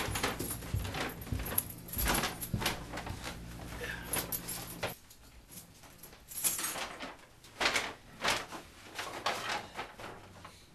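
Footsteps coming down stairs with knocks and bumps, then a paper shopping bag rustling and being set down on the floor.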